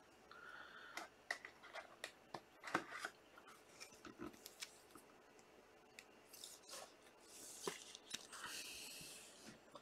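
Faint handling of a Panini Prizm trading card and plastic card holders: scattered light clicks and rubs of card and plastic, with longer soft sliding scrapes near the end as the card is slid into a rigid plastic top loader.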